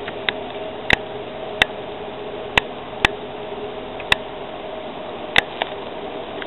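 Steady hum of an electric rack train on the Schynige Platte Railway, broken by about eight sharp clicks at uneven intervals.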